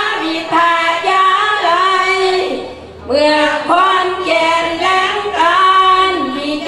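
A woman singing a Buddhist Sarabhanya verse in the Isan melodic style, with long held notes and sliding ornaments between them and a brief pause for breath about three seconds in.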